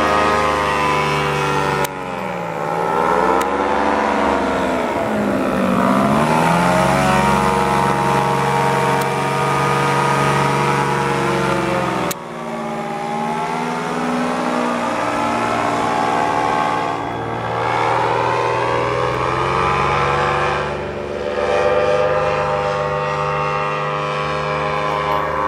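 Paramotor engine and propeller running steadily at flying power. A few seconds in the pitch sweeps down and back up as it passes, and the sound changes abruptly twice where clips are joined.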